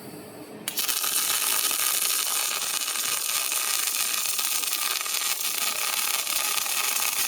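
Robotic welding arc striking under a second in, then burning steadily with an even hiss and crackle.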